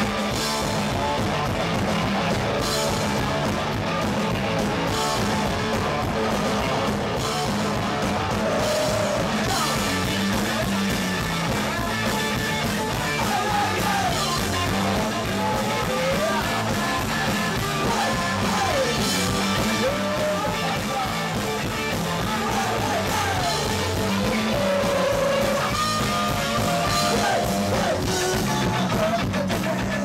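Punk rock band playing a song live: electric guitar, drum kit and a singer, heard from the audience floor.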